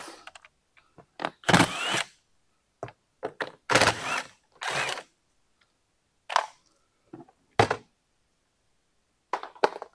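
Cordless drill backing out the screws of a plastic generator side panel in three short bursts of about half a second each. These are followed by a few sharp clicks and knocks as the panel is worked loose.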